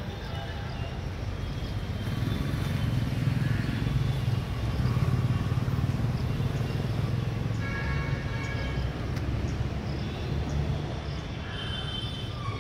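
Steady low outdoor rumble, louder through the middle, with faint high tones now and then.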